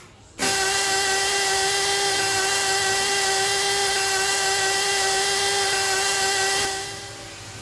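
Tiny two-stroke nitro model engine catching about half a second in, then running flat out at a steady, high-pitched whine that holds one pitch. The sound dies away about a second before the end.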